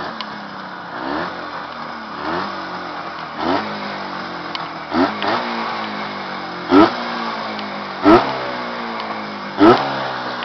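Freshly rebuilt engine running in, blipped with the throttle over and over: each rev rises and falls about once every second and a half, and the last three blips are much harder and louder.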